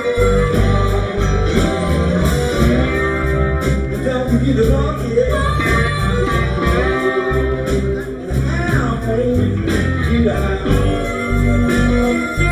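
Live blues band playing a slow blues: electric guitars and bass over drums, with a lead line carried at the microphone.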